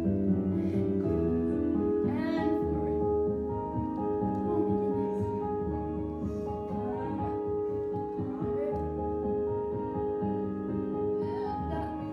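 Slow adagio accompaniment music for a ballet barre exercise, built on long held notes.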